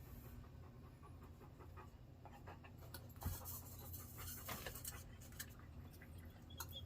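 Dog panting softly, with a few light clicks and knocks mixed in, busiest around the middle.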